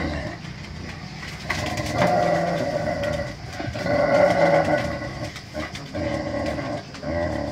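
Two dogs play-fighting and vocalizing, with drawn-out growl-like sounds in bouts of about a second each, the loudest about four seconds in.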